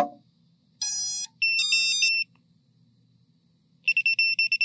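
FPV quadcopter's ESCs playing their power-up tones through the motors as the battery is connected: a sharp click, a high beep about a second in, then a short chirping multi-note melody, and quick pulsed beeping near the end.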